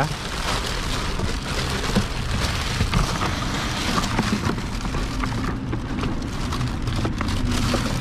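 Plastic wrapping rustling and crinkling with light knocks of hard plastic as a wet/dry vacuum cleaner's tank is unwrapped and lifted out of its box; the rustling thins out about five seconds in. A low steady hum runs underneath.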